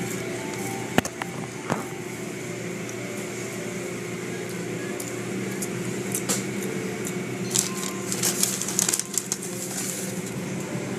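Automatic car wash heard from inside the car's cabin: a steady hum of the wash machinery, with the cloth strips and water sprays slapping against the glass and body. Sharp slaps come about a second in, and a quick run of them around eight to nine seconds in.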